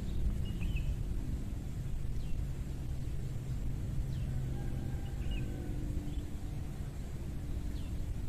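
Outdoor ambience: a steady low rumble with a few short, high bird chirps scattered through it.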